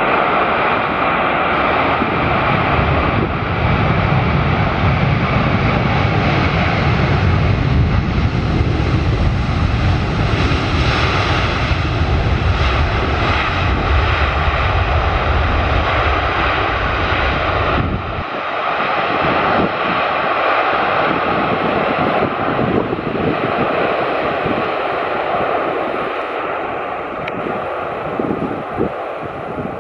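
Boeing 747-400F's four jet engines running in heavy reverse thrust on the landing roll, a loud, dense, steady rumble. The deep low rumble cuts off sharply about two-thirds of the way through, and lighter engine noise carries on to the end.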